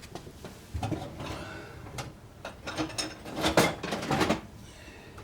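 Irregular metallic clinks and clanks of steel hand tools, washers and a lug nut at a wheel hub, as the lug nut is turned down over a stack of washers to draw a new wheel stud into the hub.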